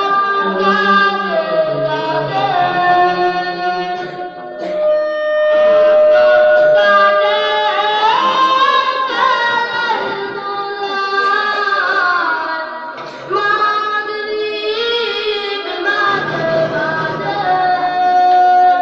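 A single voice singing a gojol, a Bengali Islamic devotional song, without instruments, in long held, ornamented phrases with brief pauses for breath.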